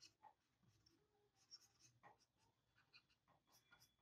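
Near silence with a few faint, brief scratches of a stylus drawing strokes on a graphics tablet.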